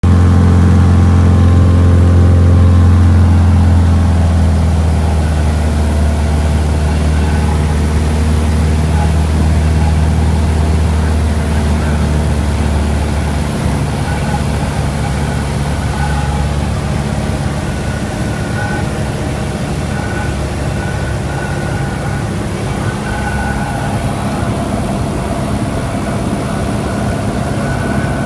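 Cessna 172 floatplane's piston engine and propeller running, heard from inside the cabin on the approach to a lake landing. The engine note drops about four seconds in and again about halfway through as power comes back for the descent.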